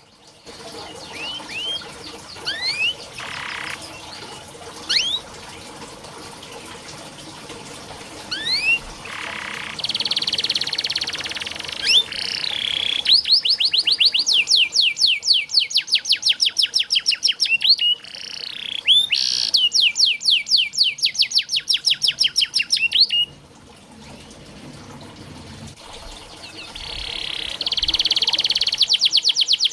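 Domestic canary singing: scattered short rising whistled notes, then long, fast rolling trills of repeated downward-sweeping notes, broken by a few harsh buzzy phrases. The song drops away briefly about three-quarters of the way through and a new trill starts near the end.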